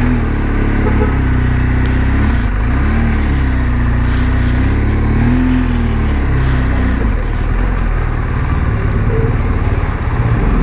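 BMW R1200GS boxer-twin engine running as the motorcycle is ridden at low speed, its note rising and falling three times in the first seven seconds, then settling.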